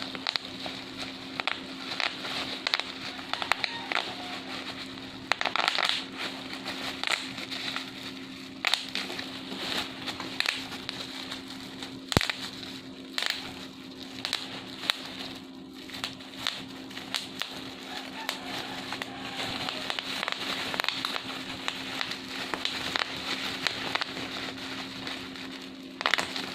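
Bubble wrap being popped and crinkled by hand: a dense, irregular run of sharp pops and crackles, with a steady low hum underneath.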